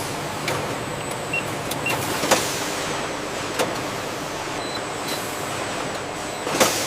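Factory processing machinery running: a steady mechanical noise with sharp clanks now and then and a few short, high beeps.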